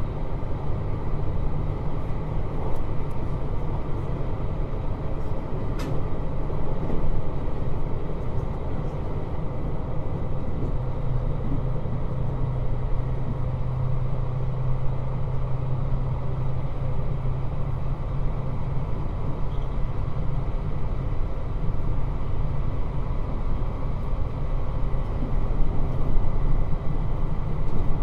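Running sound heard inside a JR Hokkaido 721 series 3000-subseries electric train under way: a steady low rumble of the wheels and running gear. A low steady hum joins in for about ten seconds in the middle.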